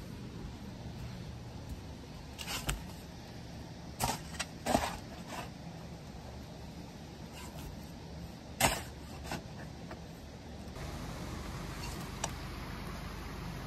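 Footsteps in work boots on loose soil and gravel: a few scattered, irregular steps over a steady low hum. About three-quarters of the way through, the background changes to a steady even hiss.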